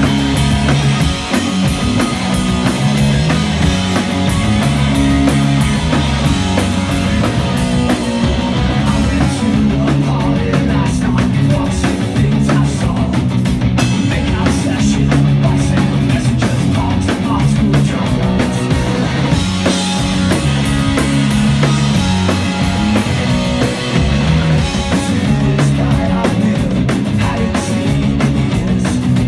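Punk rock band playing live through amplifiers: electric guitars, bass guitar and drum kit, loud and unbroken.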